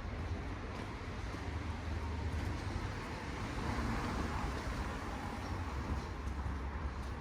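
Street traffic: a car's engine and tyre noise swells and fades around the middle, over a steady low rumble.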